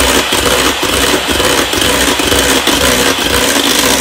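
Electric hand mixer running steadily, its twin beaters whipping chilled cream in a bowl. The cream has doubled in volume and is thickening towards soft peaks.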